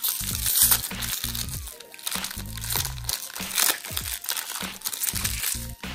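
A small plastic packaging bag being crinkled and torn open by hand, many short crackles, over background music with a steady low beat.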